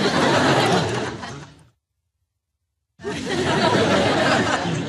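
Studio audience laughter from a laugh track, in two separate bursts. The first fades out under two seconds in and the second comes in about a second later, with dead silence between them.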